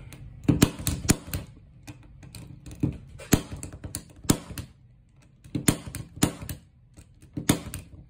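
Impact punch-down tool snapping as it seats the wires of a CAT6 cable into a network jack's terminals, its blade cutting off the excess wire on each stroke. Sharp pops come about a second apart, some in quick pairs or clusters.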